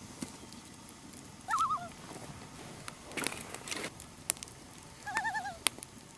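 A bird gives two short quavering calls, each wavering quickly up and down in pitch, about a second and a half and five seconds in. A campfire crackles between them with a few sharp pops.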